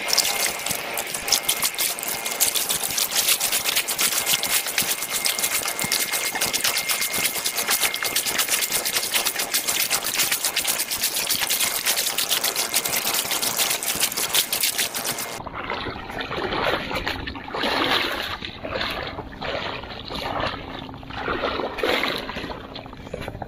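Water sloshing and splashing close to the microphone, a dense crackling noise for about fifteen seconds. It then cuts to quieter, muffled sounds in short bursts.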